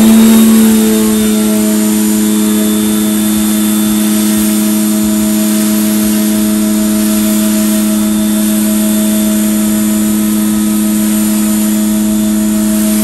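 Giraffe Tools Grandfalls electric pressure washer running at full pressure. Its motor and pump hum steadily after coming up to speed at the very start, under the hiss of the water spray hitting the car's paint.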